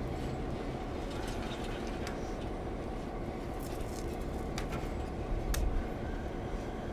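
C&O 1309, a 2-6-6-2 articulated steam locomotive, rolling slowly along the rails: a steady low rumble with scattered clicks and knocks from the wheels and running gear, a little louder about five and a half seconds in.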